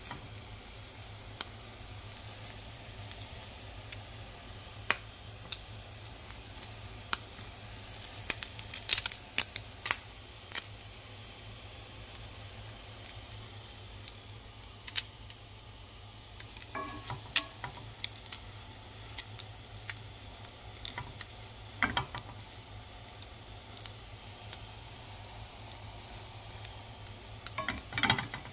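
French toast frying in a nonstick pan: a steady sizzle with scattered sharp crackles and pops, thickest about eight to ten seconds in. There are a few brief clattery knocks later on.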